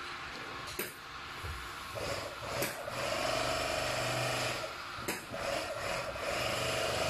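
GA26-1A portable single-needle, two-thread bag closing machine running as it stitches across the top of a woven sack. Its electric motor and rapid needle action make a steady machine whir that picks up about two seconds in, dips briefly around five seconds, then runs on, with a few sharp clicks along the way.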